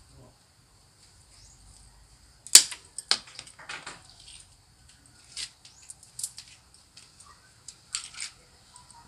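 Sharp clicks and snaps of a hand cutter snipping off a branch of a santigi bonsai, the loudest about two and a half seconds in. Lighter scattered clicks and knocks follow.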